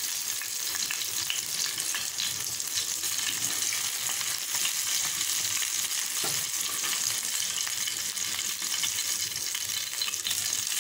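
Chilli-and-turmeric-coated anchovies sizzling in shallow hot oil in a frying pan, a steady high hiss with fine crackling, as a metal spoon stirs and lifts out the last fried pieces. A faint knock of the spoon against the pan about six seconds in.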